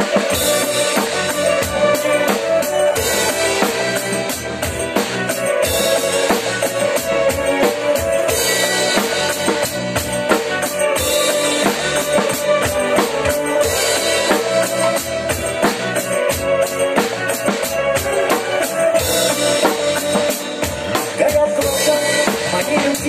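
Drum kit played in a steady pop beat on hi-hat, snare and bass drum along with a recorded backing track, during an instrumental break with no singing.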